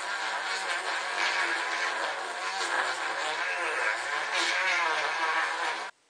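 Corded high-speed rotary tool with a sanding bit running as it sands out a hole in a wooden 2x2. Its whine wavers up and down in pitch as the bit bears on the wood, and it cuts off abruptly near the end.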